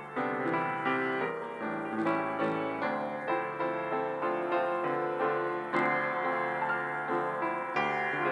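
Solo piano playing a slow, tender piece, notes and chords struck two or three times a second and left ringing.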